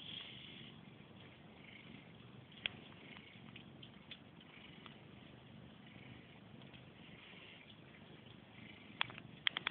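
Faint purring of sleeping cats, coming in slow waves, with a sharp click a few seconds in and a quick run of clicks near the end.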